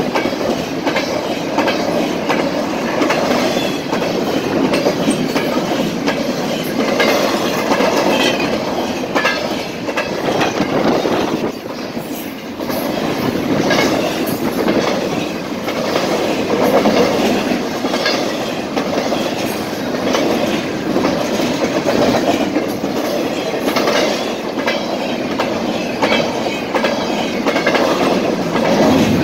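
Canadian National double-stack intermodal freight train rolling past, its steel wheels clattering over the rail joints in a steady, continuous clickety-clack, with the rumble and rattle of the loaded well cars.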